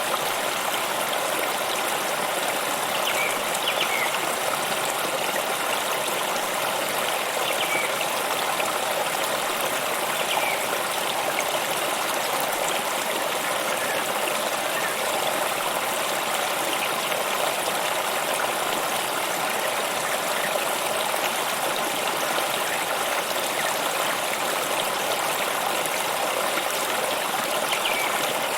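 Stream water running and trickling steadily, with a few faint short high chirps now and then.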